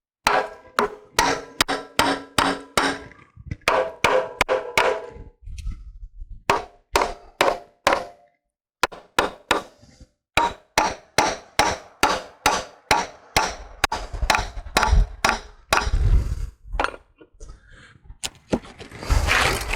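Hammer striking the Minneapolis Moline engine's cast-iron intake and exhaust manifold over and over, about two to three blows a second in runs with short pauses. Many blows leave a metallic ring, and a few heavier, duller thuds come near the end. The blows are knocking the manifold loose from its old stuck gasket.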